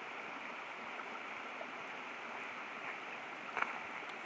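Steady rushing outdoor background noise, with one faint short knock about three and a half seconds in.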